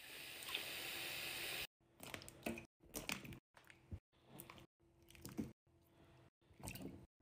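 Rapidly cut series of short handling sounds from restocking a fridge: containers and packaged food being picked up and set down, with clicks and knocks in each snippet. A steady hiss fills the first second and a half.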